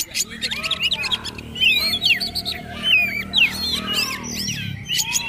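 Oriental magpie-robin (kacer) singing a fast, continuous 'trotol' song: a varied run of sliding whistled phrases and quick chirps with hardly a pause.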